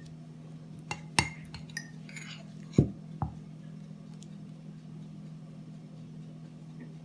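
A spoon clinking and knocking against a glass jar several times, with a short scrape in between, as grated black radish and honey are packed in layers. The loudest knock comes about three seconds in. A low steady hum lies underneath.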